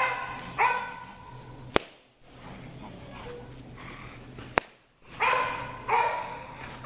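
American Bulldog puppies barking in short, high yips, a couple at the start and a few more after about five seconds, with two sharp clicks in between.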